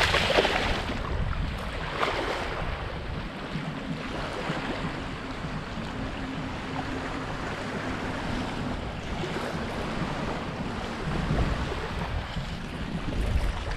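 A hooked barracuda thrashing in shallow surf as it is pulled up the beach, with a sharp splash at the start and a smaller one about two seconds in. After that come wind buffeting the microphone and small waves washing on the sand.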